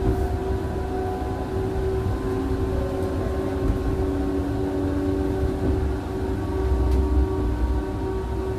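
Electric tram running, heard from inside the car: a low rumble of the wheels on the rails under a steady whine in several tones, some of which shift slowly in pitch.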